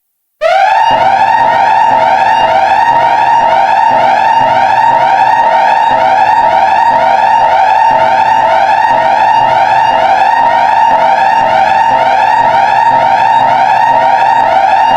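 Emergency Alert System-style alarm sounding loudly: a steady piercing tone with a rapidly repeating rising-and-falling warble over it. It starts abruptly about half a second in and holds unchanged.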